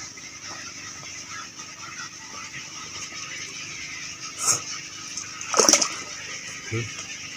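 Water splashing and sloshing, with two short louder splashes past the middle.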